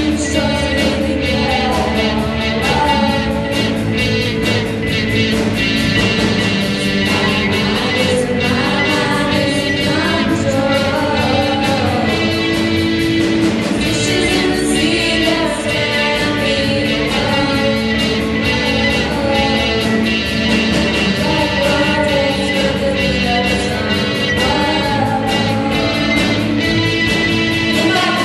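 Rock band playing live, a singer's voice carrying the melody over guitar and a steady drum beat.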